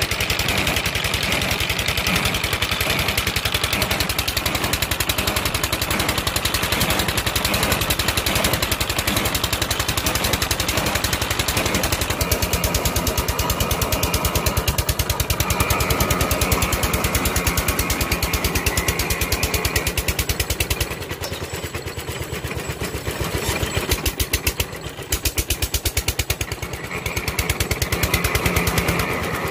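Engine of a water-well boring rig running steadily, turning the belt pulleys and cable winch, its firing heard as a rapid, even run of knocks. It becomes somewhat quieter and uneven about two-thirds of the way through.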